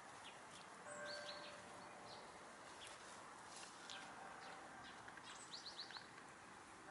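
Quiet outdoor background with faint, short, high-pitched chirps of small birds: a brief cluster about a second in and a quick run of four or five chirps near the end.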